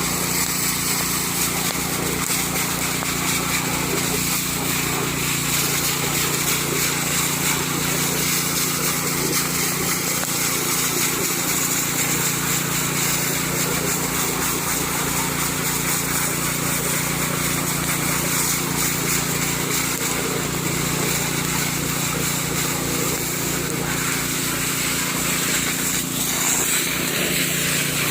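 Small petrol engine of an alkon water pump running steadily at constant speed.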